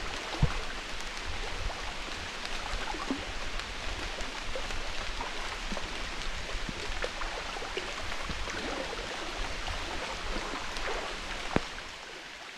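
Footsteps sloshing through shallow floodwater over a steady watery hiss, with scattered small knocks and splashes. A sharp thump comes about half a second in and another near the end.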